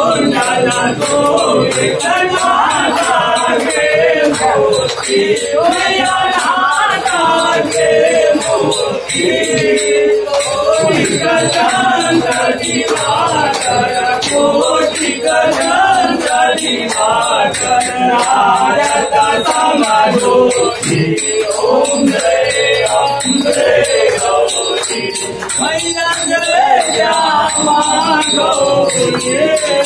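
A group of people singing a Hindu aarti hymn together, with a small bell ringing along throughout.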